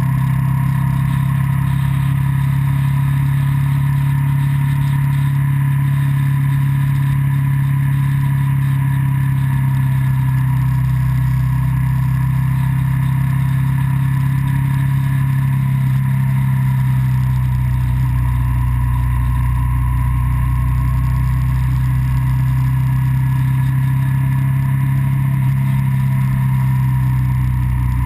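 Vehicle engine running at a steady cruising speed, a continuous drone with road and wind noise, heard through a camera mounted on the vehicle.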